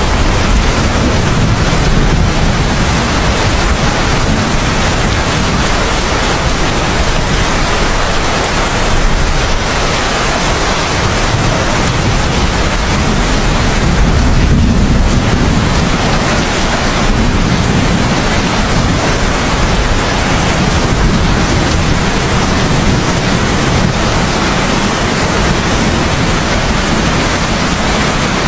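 Steady heavy rain, an even hiss, with a low rumble of distant thunder swelling briefly about halfway through.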